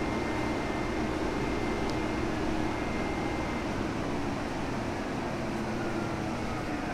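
Inside the cabin of a 2011 New Flyer DE60LFR articulated hybrid bus under way: the Cummins ISL9 diesel and Allison EP50 hybrid drive make a steady drone, with a faint high steady tone over it.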